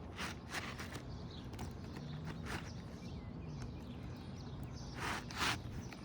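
Scattered light taps and scrapes from hand work on asphalt roof shingles, with two louder scrapes about five seconds in.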